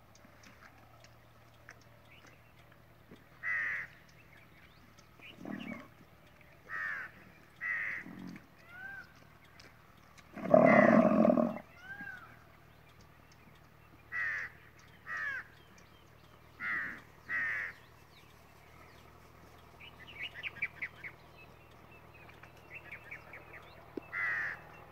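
Crows cawing again and again, short harsh calls spread through the stretch. About ten seconds in comes one loud, low animal call lasting about a second and a half, the loudest sound here.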